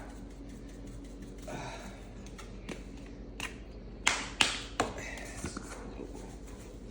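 A few sharp taps and clicks of spice containers and a mixing bowl being handled while spices are added to flour, the loudest two coming about four seconds in, over a low steady room hum.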